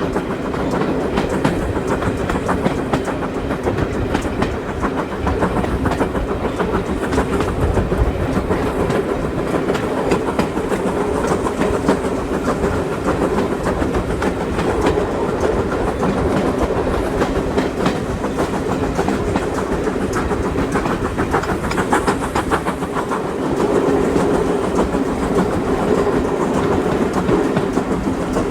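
Train running along the line: a steady rumble with the wheels clicking rhythmically over the rails, a little louder in the last few seconds.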